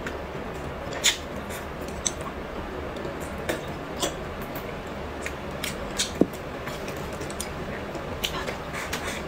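Close-miked eating: wet chewing and lip smacks with scattered sharp mouth clicks, the loudest about a second in and about six seconds in, over a steady low hum.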